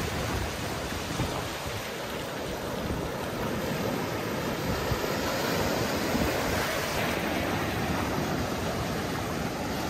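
Small waves breaking and washing up over sand and rocks in a steady rushing wash that swells a little around the middle.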